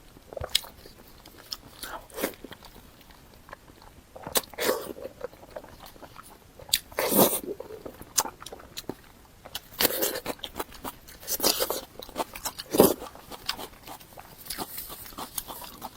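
A person eating close to the microphone: biting and chewing mouth sounds in irregular bursts, with a handful of louder wet bites spread through the middle.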